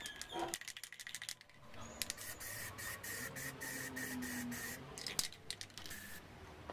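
Aerosol spray-paint can hissing as paint is sprayed, in one long burst of about three seconds and then a few short bursts, after a run of clicks in the first second and a half.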